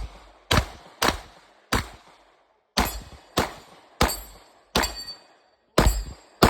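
Pistol shots fired in a string, about ten of them roughly half a second to a second apart, with two close together near the end, each trailing off in a brief echo.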